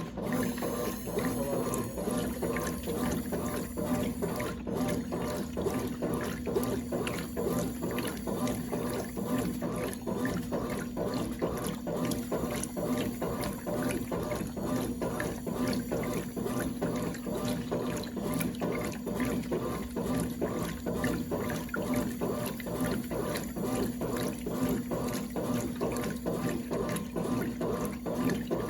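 Brastemp Clean 5 kg washing machine (BWR22A) running with water in it: a steady mains hum under continuous water noise, unchanging throughout.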